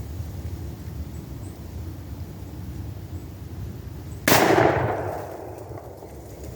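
A single shot from a Pietta replica of the Remington 1858 .44-caliber black-powder revolver, loaded with a 200-grain conical bullet over 2F rifle powder; a sharp report about four seconds in, followed by an echo that fades over about a second and a half.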